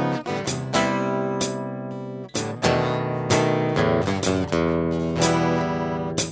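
Acoustic guitar strumming chords over a steady beat from a Finhol Stompcon foot-played stomp box, about three strikes every two seconds.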